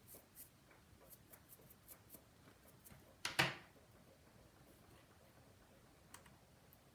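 Faint, scattered small clicks and ticks of precision repair tools handling iPhone 5 internals, with one louder short sound about three and a half seconds in.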